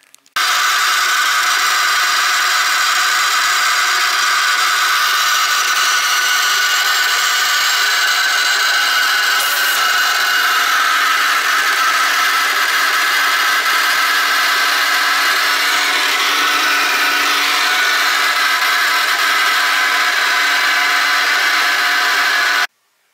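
Leather splitting machine running with a steady, high-pitched mechanical whir. It starts suddenly about half a second in and cuts off suddenly near the end.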